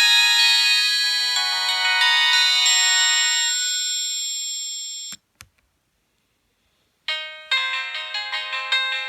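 Nokia 1280 mobile phone ringtones. A melody of layered ringing notes fades out over the first five seconds, ending in a click. After about two seconds of silence, another ringtone starts with quick, evenly repeated notes.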